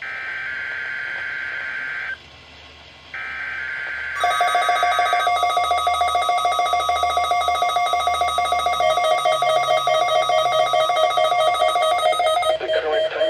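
NOAA Weather Radio SAME data header: two bursts of warbling two-tone data, each about two seconds long, a second apart. About four seconds in, the 1050 Hz weather radio warning alarm tone starts and holds for about eight seconds. It is overlapped by a louder, rapidly pulsing electronic alert beep from the weather radio receiver, which goes on almost to the end.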